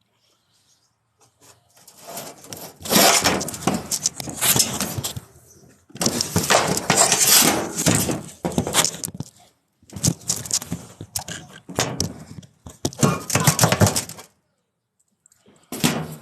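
A power tool grinding and scraping on a workpiece in several harsh, irregular bursts with short pauses between them.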